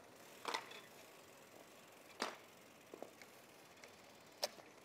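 A few faint, sharp clicks, four in all and spaced irregularly, over a low steady hiss.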